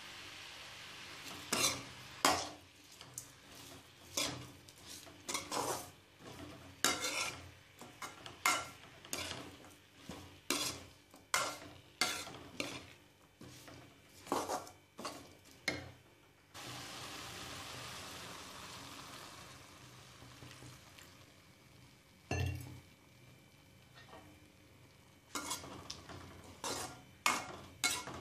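Slotted metal spatula stirring and scraping diced bottle gourd in a pan, about one or two strokes a second, over a faint sizzle. Partway through the stirring stops for several seconds of steady hiss, then comes a thump and the stirring resumes near the end.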